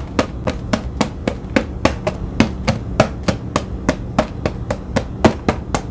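Cookies dropping one by one into a container, each landing with a hard tap, in a steady run of about four taps a second.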